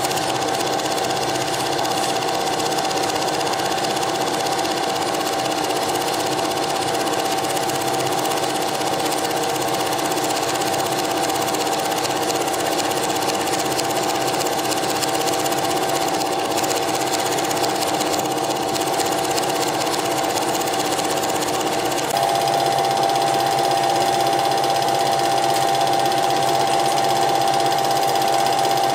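Cine film projector running, a steady mechanical whirr with a constant hum; its tone shifts slightly and it grows a little louder about three quarters of the way through.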